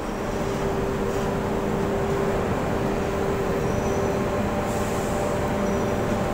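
Steady drone of a ship's deck machinery, with a steady hum that sets in just after the start and a second, higher hum joining about halfway through.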